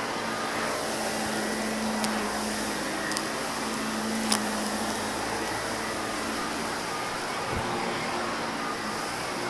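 Shark upright vacuum cleaner running on carpet with a steady motor hum, with three sharp crunchy clicks of debris being sucked up between about two and four and a half seconds in.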